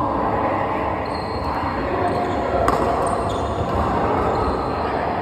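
Badminton rally in a large hall: a racket striking the shuttlecock with a sharp crack about halfway through, plus a few fainter hits. Behind it runs a steady, echoing din of voices.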